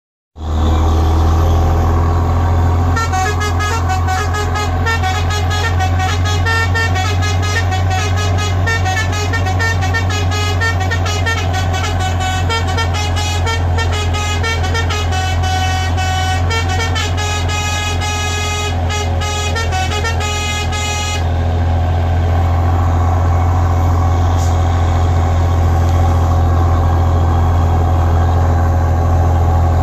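A truck's musical horn plays a fast melody of quickly changing notes over the steady drone of the truck's engine, heard from inside the cab. The horn starts about three seconds in and stops about twenty-one seconds in, and the engine keeps running.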